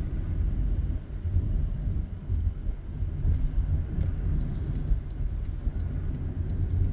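Car driving through city streets, heard from inside the cabin: a steady low rumble of road and engine noise.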